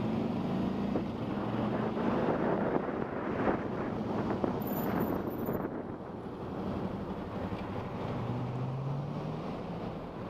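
Wind rushing over the helmet microphone of a moving Suzuki V-Strom motorcycle, with the engine's steady hum underneath. About eight seconds in, the engine note climbs briefly as the bike accelerates.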